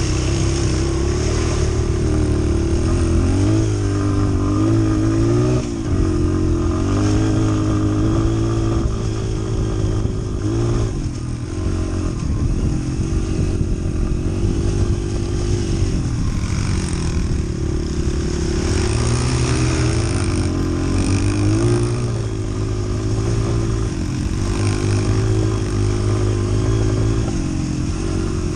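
Small Honda four-stroke single-cylinder trail bike engine running close to the microphone, its revs rising and falling as the throttle is worked, with a brief dip about six seconds in.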